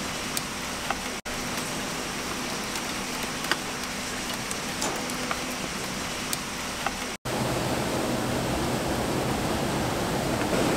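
Steady rush of rain and running water with scattered small drips and ticks. The sound drops out for an instant twice, and after the second break it is fuller, with more low rumble.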